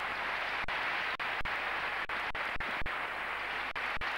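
Large arena crowd applauding steadily at the end of a routine.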